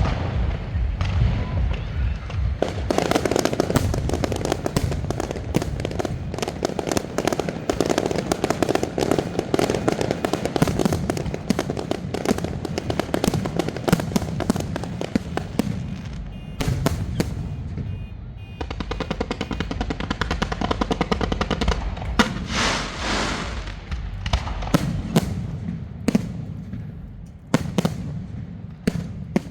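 Fireworks and firecrackers going off in a dense, continuous barrage of rapid bangs and crackling, thinning briefly around the middle.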